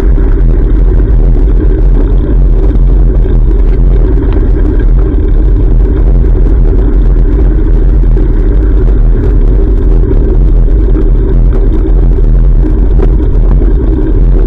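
Wind buffeting a GoPro's microphone on a moving bicycle: a loud, steady low rumble with no break.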